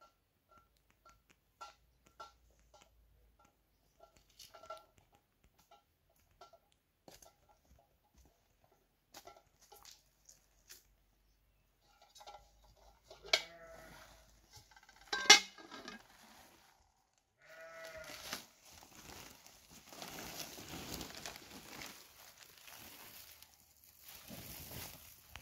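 Faint scattered ticks and chirps, then a woven plastic sack rustling steadily as it is unfolded and spread on the ground for the last several seconds. A single sharp metallic clank, the loudest sound, comes about halfway, as a metal bowl is set down, and two short animal bleats come just before and just after it.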